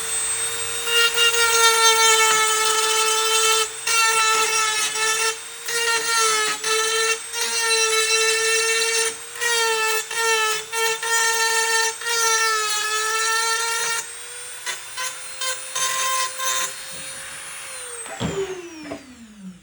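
Dremel rotary tool with a grinding tip running at high speed, grinding off the plastic welds on the back of a plastic fender badge in repeated bursts. It winds down with a falling pitch near the end.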